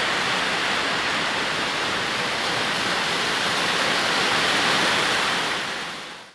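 Steady rush of a rainstorm and wind through palm and other trees, fading out near the end.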